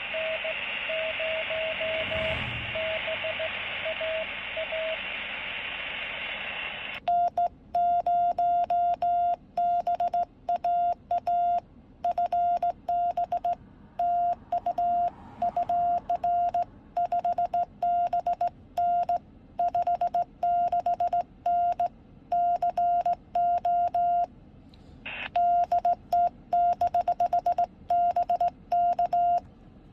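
Morse code (CW) tones from a Quansheng radio. For the first seven seconds a faint keyed tone sits under steady receiver hiss. Then the hiss cuts out and a loud, steady-pitched tone keys long and short elements in quick runs, with one short pause a few seconds before the end.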